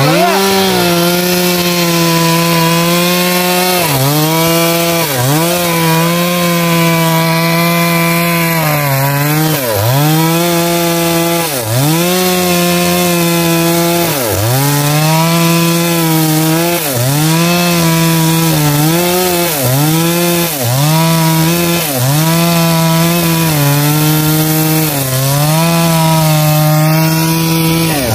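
Stihl MS 382 two-stroke chainsaw running at full throttle while cutting into the trunk of a large rain tree. The engine pitch dips and recovers about once a second as the chain bites into the wood under load.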